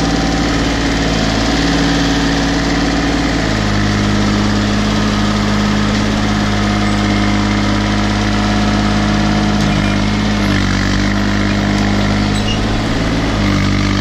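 Case 235 compact tractor's diesel engine running steadily, its note shifting about three and a half seconds in and again twice near the end.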